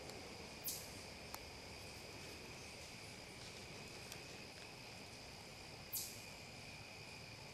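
Faint, steady high trill of insects, such as crickets, in autumn woods. Twice, about five seconds apart, a brief, sharp, high falling sound stands out above it.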